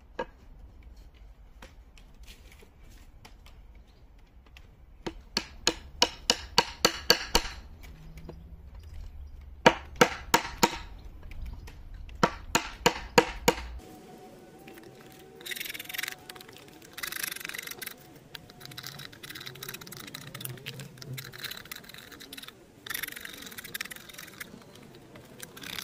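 A mallet driving a chisel into a wooden axe-handle blank: quick runs of sharp knocks, several strikes per run. Then a drawknife shaving the handle on a shaving horse in several strokes, each about a second long.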